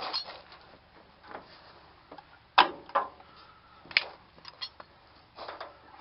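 A few sharp clicks and light knocks from handling small tools and parts at the water heater. The loudest comes about two and a half seconds in, and more follow around the fourth second.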